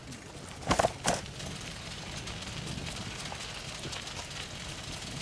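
Steady noise of a bicycle being ridden with a leashed dog trotting alongside. Two short, loud knocks come about a second in.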